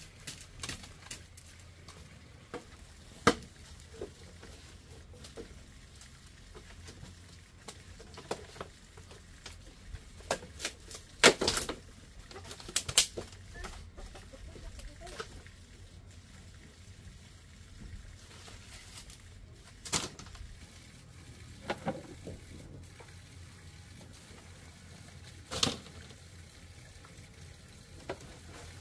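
Bamboo being handled in building work: scattered light clicks and knocks of bamboo poles, slats and woven bamboo panels against each other, with several sharper knocks.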